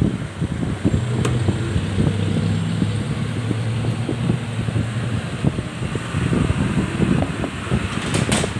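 Steady low mechanical hum with a rumbling background noise; the hum's pitch shifts a few times.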